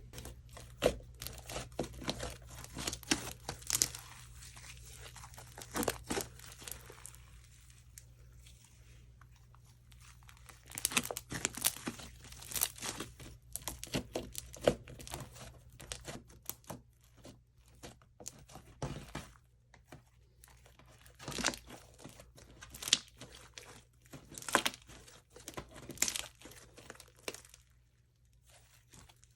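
Homemade slime being squished, stretched and pulled apart by hand, giving irregular sticky clicks, pops and crackles. There is a quieter stretch about a third of the way in and again near the end.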